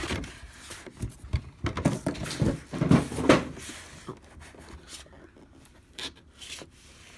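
Hard clear plastic helmet display case handled in the hands: a run of knocks, taps and rubbing as it is gripped and turned, busiest and loudest in the middle and quieter near the end.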